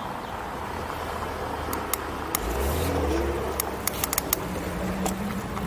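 E-bike riding over paving, with wind rumbling on the microphone and scattered sharp clicks and rattles from the bike, bunched together about four seconds in.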